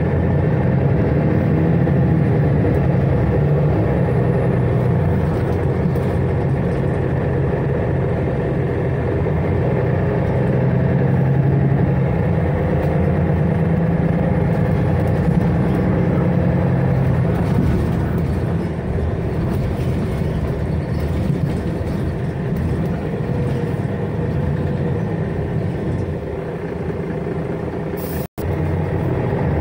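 Mercedes-Benz Citaro city bus heard from inside the passenger cabin on the move: a steady engine drone over road noise, the engine note rising and easing a little. The sound cuts out for an instant near the end.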